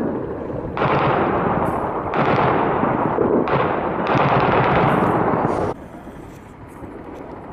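Long bursts of rapid automatic gunfire, several runs following close on one another from about a second in, then stopping abruptly.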